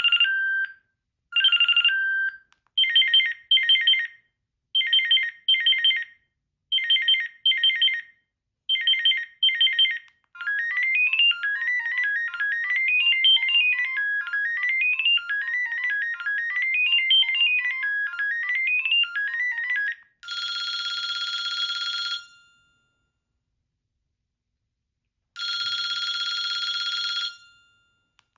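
Sanyo Vero mobile phone playing its built-in ringtones in turn. First come short electronic chirps, repeating in quick pairs about every two seconds. Then a fast electronic melody runs up and down, and then a steady buzzy ring tone sounds twice, about two seconds each, with a pause between.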